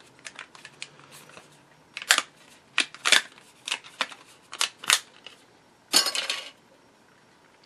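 Thin plastic sheet cracking and clicking as it is flexed along a scored circle, snapping a disc free: a string of sharp ticks over a few seconds, then a brief scraping rustle near the end.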